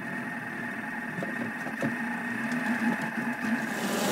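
Thermomix food processor motor running at low speed with a steady whine and hum, mixing a thick tuna and mayonnaise paste, with a few light knocks of the spatula against the steel bowl. Near the end it gets louder and brighter.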